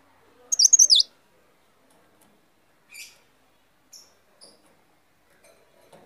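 Caged cikrak daun, a small songbird, giving a quick loud run of high, falling notes about half a second in, then a few short single chirps spaced about a second apart.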